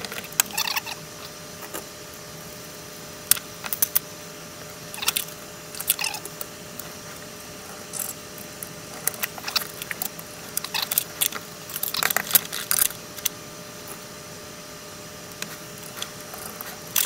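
Irregular metallic clicks, taps and scrapes as an antenna coil and its bolts are fitted into a tube radio's metal chassis and tightened by hand, busiest in the second half, over a faint steady hum.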